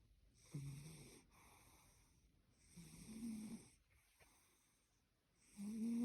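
A sleeping cat snoring: three snores about two and a half seconds apart, each a short pitched drone that rises slightly in pitch. The third, starting near the end, is the loudest.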